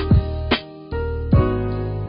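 Music: sustained keyboard chords over a drum beat with deep kick-drum thumps.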